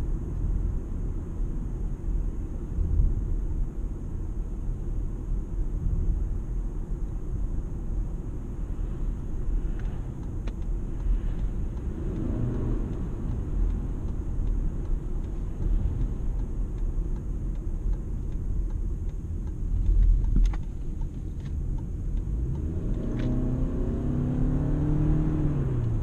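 Toyota Camry Hybrid on the move: a steady low rumble of road and drivetrain noise, with the petrol engine's note rising as it picks up speed near the end. A few faint clicks come in between.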